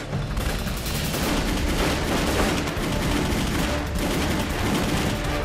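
Dense, continuous gunfire, a rapid mix of rifle shots and machine-gun bursts, as in a battle soundtrack.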